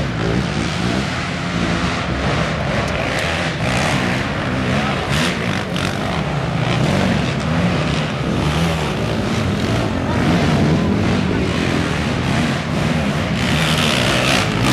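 Racing quad (ATV) engines revving hard as the machines climb a steep dirt hill, a steady din of engines that gets louder and brighter near the end as one climbs close by.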